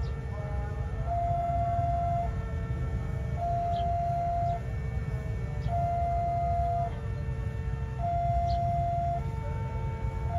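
Railway level-crossing warning alarm sounding a two-note electronic tone, high and low notes alternating about once a second, warning of an approaching train, with a steady low rumble underneath.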